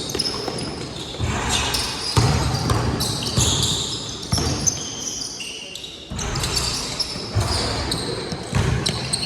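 Basketball game in play: the ball bouncing on the court and sneakers squeaking, with players calling out. It goes quieter for a moment about five seconds in.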